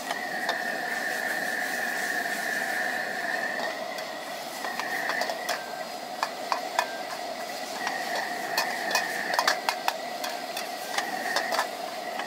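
Metal wok ladle scraping and clanking irregularly against a carbon-steel wok while flat rice noodles and bean sprouts are stir-fried, with the clanks coming more often in the second half. Under it, a steady hum and sizzling hiss from the gas wok burner and the frying food.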